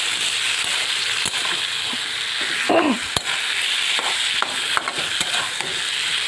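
Fish pieces sizzling steadily in hot oil in a kadai while a metal spatula scrapes and knocks against the pan as they are stirred. A short falling squeak about three seconds in.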